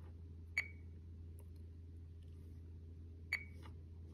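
RadioMaster TX16S radio transmitter giving two short beeps about three seconds apart as its menu is stepped through, over a faint low steady hum.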